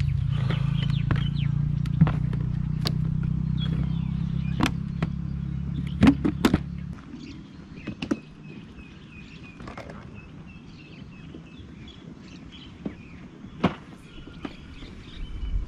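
An engine running steadily with a low hum, which drops away abruptly about seven seconds in. After that there is a quieter background with scattered sharp clicks and short high chirps, and a low rumble comes back near the end.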